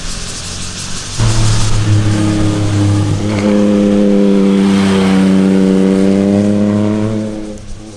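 A motorcycle engine running hard at a nearly steady pitch as the bike leans through a bend and passes close by. It starts abruptly about a second in, dips slightly in pitch as it goes past, and fades near the end.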